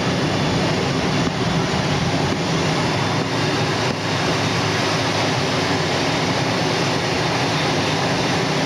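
Steady loud rush with a low hum from a parked turboprop airliner's engine running.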